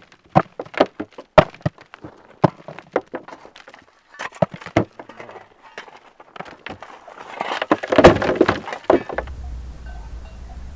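A run of sharp knocks and thuds in irregular succession, crowding together with a rushing noise near the end, then cut off abruptly by a low steady hum.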